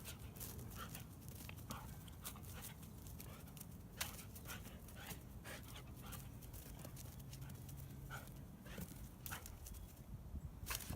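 A dog panting, with many short, sharp clicks scattered throughout.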